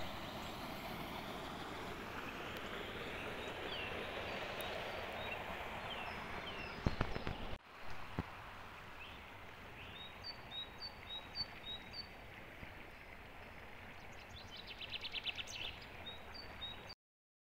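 Shallow creek flowing over a riffle, a steady rush of water with small birds chirping over it. The water sound drops abruptly about eight seconds in, after which a series of short chirps and then a rapid bird trill near the end stand out.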